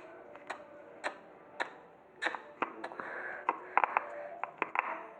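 Glossy, sticky slime being squeezed and poked by hand, giving a string of sharp clicks and pops, irregular and coming closer together in the second half.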